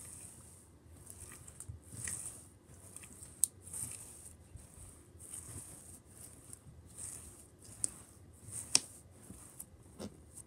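Hands rolling glittery slime back and forth on a textured mat: a run of soft swishing strokes, about one a second, broken by a few sharp sticky clicks or pops, the loudest about nine seconds in.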